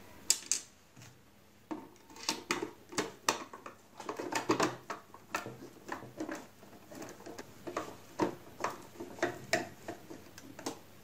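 Irregular light clicks and small knocks of a Singer Promise 1408's plastic end cover being handled into place and a screw being driven into it with a screwdriver.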